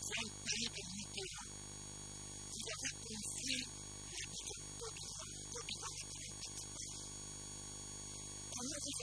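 A man talking in stretches with short pauses, over a steady electrical mains hum and buzz that runs throughout.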